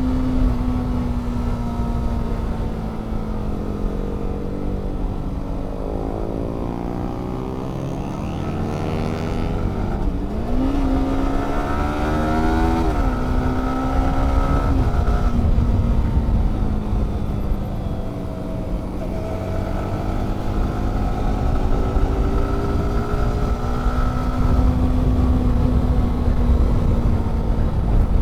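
Motorcycle engine running under way, heard from the bike with heavy wind rumble on the microphone. Its pitch sags and climbs as the rider eases off and accelerates, with quick revving rises about ten and twelve seconds in.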